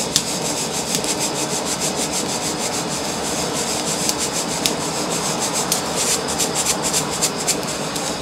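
Coffee beans rattling and scraping inside a shaken stainless steel mesh colander roaster, with the sharp cracks of first crack popping over it, coming thick and fast in the second half. The pops coming this fast are something the roaster puts down to holding the beans down in the heat a little too much.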